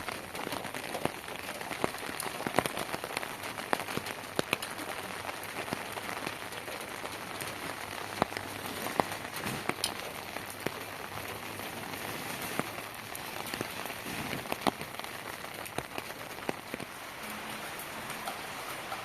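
Heavy rain falling steadily, an even hiss broken by many scattered sharp ticks of individual drops striking.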